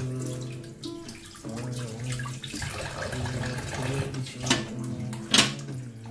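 Tap water running over sardines being rinsed at a sink, with a background song of held sung notes underneath. Two sharp clacks come near the end.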